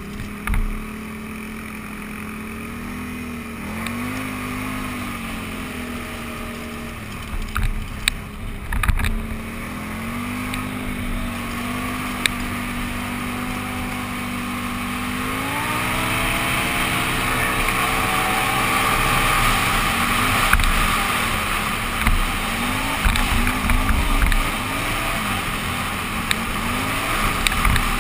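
Can-Am Renegade 800 ATV's V-twin engine running under the rider. It holds a steady pitch for the first half, rises sharply as it accelerates about halfway through, then rises and falls repeatedly as the throttle is worked. A few low thumps come through around the start, at about eight seconds and at the end.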